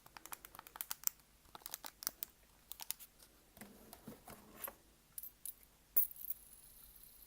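Close-miked ASMR trigger sounds: quick, irregular taps and clicks on a small hard object, with a short scratchy rustle about four seconds in and a sharper click about six seconds in.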